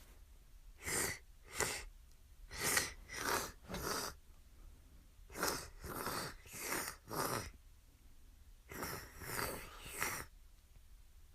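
Rapid, noisy breaths in short runs of two to four, about two a second, with brief pauses between runs, like heavy panting.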